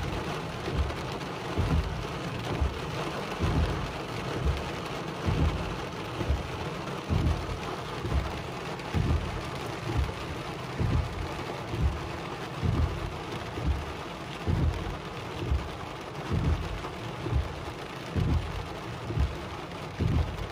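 Heavy rain drumming on a car's roof and windshield, with the windshield wipers sweeping and a regular low thump about once a second.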